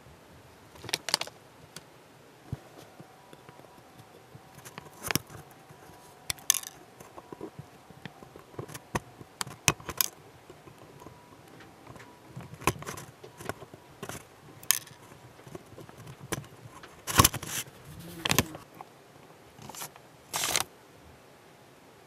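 Sprue cutters snipping small plastic parts off a plastic model kit sprue: a series of short, sharp, irregularly spaced clicks, about ten louder snips among lighter handling ticks.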